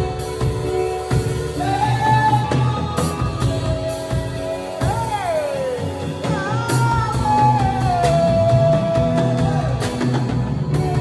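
A song playing: a lead voice sings a sustained melody with bends and slides, over drums and bass.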